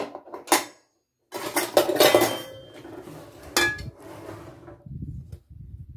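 A metal serving dish being set down and handled on a table: a few sharp clicks, a clattering scrape, and a sharp knock about three and a half seconds in that rings briefly.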